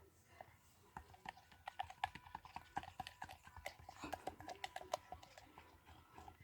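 Toothpaste slime mixture being worked in a container: rapid, irregular small clicks and sticky taps, several a second, getting busier about two-thirds of the way through.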